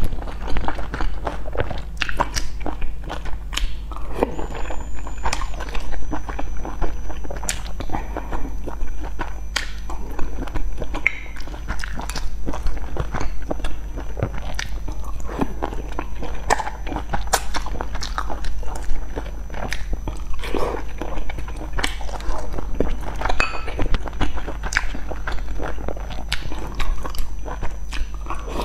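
Close-up eating sounds of someone biting and chewing soft boiled dumplings, full of short clicks and smacks, over a steady low hum.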